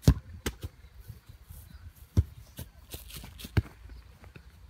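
A series of sharp, short knocks at irregular intervals, the loudest right at the start, about two seconds in and about three and a half seconds in, over a low rumble.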